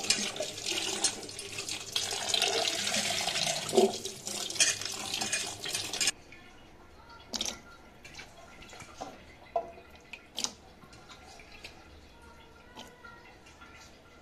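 Tap water running into a steel pot while a hand swishes and rubs small potatoes in it. The water stops suddenly about six seconds in, and a few light knocks follow.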